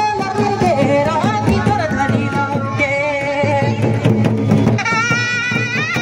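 A man sings a Nagpuri folk song into a microphone over steady drum beats. A brighter, higher melody line comes in near the end.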